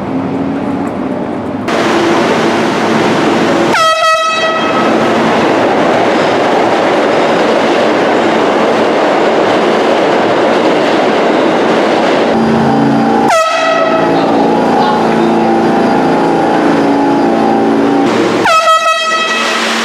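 Three short blasts of a handheld air horn, the first a few seconds in, the next two about two-thirds of the way through and near the end, over the loud, steady rumble of a New York City subway train running.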